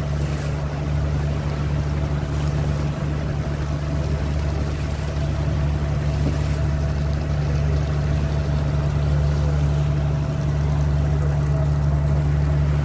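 Fishing boat's engine running steadily under way, a deep constant drone that does not change in pitch or level, with water washing along the hull.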